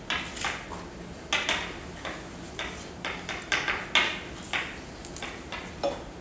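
Chalk writing on a blackboard: an irregular run of short taps and scratches as the letters are formed, a few each second.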